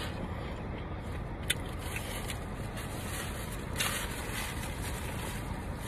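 Quiet eating sounds from a rice bowl: a sharp mouth click about a second and a half in, a few faint ticks, and a short crackly chewing burst near the middle, all over a steady low rumble.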